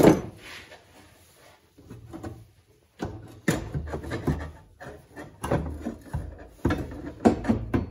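Irregular clunks, knocks and scrapes of a welded metal frame piece being worked up into place at a car's firewall. The knocks are sharpest near the end.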